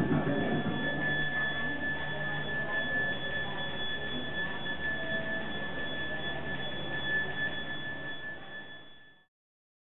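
A steady high-pitched ringing tone with a fainter higher tone above it, over a low background murmur, fading out about nine seconds in.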